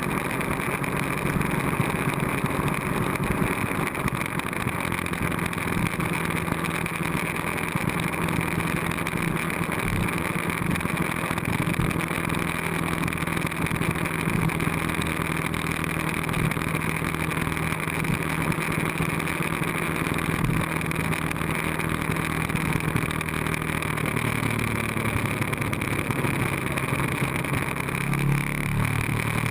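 Ducati 1098S's V-twin engine running steadily at cruising speed, heard over wind rush from the bike-mounted camera. The engine note dips and picks up again near the end.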